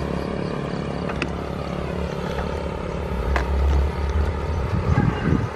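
Wind buffeting the microphone of a camera mounted on a moving bicycle's handlebar: an uneven low rumble that swells a little after three seconds and again near five seconds, with two sharp clicks, about a second in and about three and a half seconds in.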